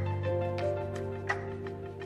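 Background music: sustained mellow chords over a low bass, with a light, evenly spaced beat.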